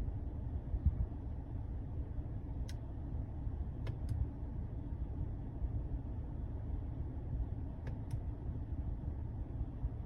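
Steady low rumble of a car, with a few faint short clicks around three to four seconds in and again near eight seconds.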